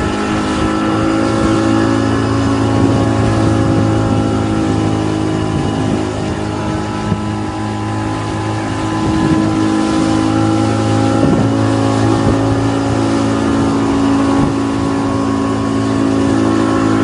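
A small fishing boat's engine running steadily under way, with a slight easing about halfway through.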